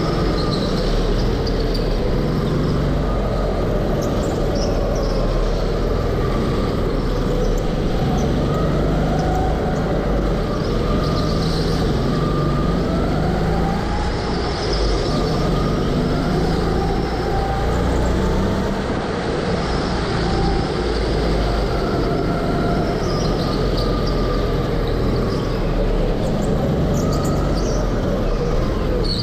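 Go-kart engine running at speed, its pitch rising and falling every few seconds as the kart accelerates and slows through the corners.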